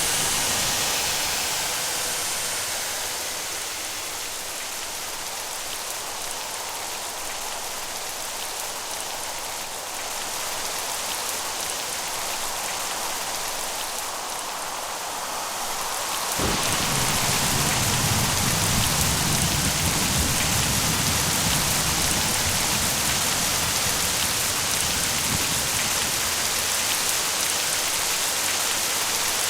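Steady rain hissing, with a low thunder rumble dying away at the start. About halfway through, a sudden crack of thunder is followed by a low rolling rumble lasting about ten seconds, and the rain grows louder.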